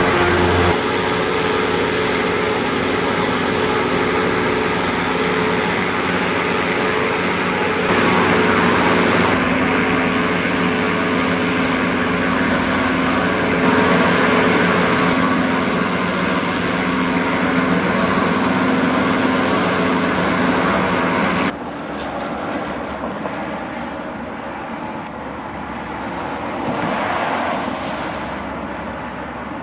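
Goodyear Zeppelin NT airship Wingfoot Two running its engines and propellers on the ground: a steady hum with several held tones. About 21 seconds in it gives way to the fainter, noisier drone of the airship in flight, swelling briefly near the end.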